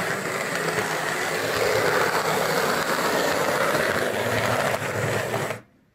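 Lima Class 156 model diesel multiple unit's electric motor and gears whirring as it runs along the track, then cutting out abruptly about five and a half seconds in as it stalls. The running is slightly rough, which the owner thinks may be down to the motor being very dry.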